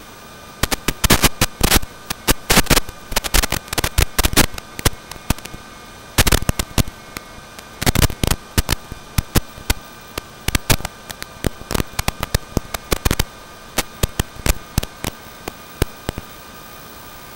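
Static hiss from an analog FPV goggle recording, with a few faint steady whines, broken by irregular bursts of sharp crackling pops that thin out near the end.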